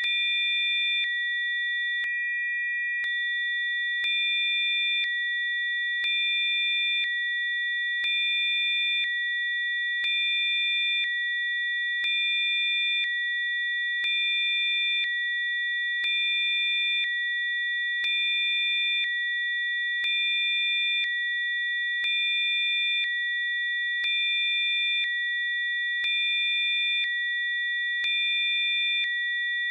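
Electronically generated Rife-frequency sine tones: several steady, high-pitched pure tones sounding together, with a fainter tone switching on and off about once a second and a slight click at each change.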